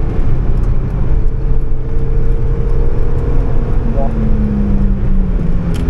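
Mazda MX-5's four-cylinder engine running hard, heard inside the cabin with heavy road and wind rumble; in the last two seconds the engine note drifts steadily lower as the revs fall. A brief short chirp sounds about four seconds in.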